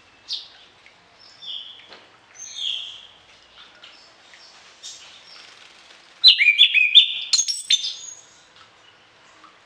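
Orange-headed thrush singing a varied song with mimicked phrases: scattered short whistled notes, then a loud, rapid run of varied notes about six seconds in.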